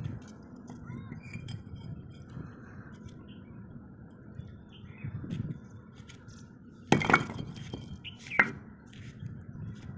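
Fired clay bricks being handled and set on a concrete floor, with light scrapes and knocks, then two sharp brick impacts, about seven and eight and a half seconds in.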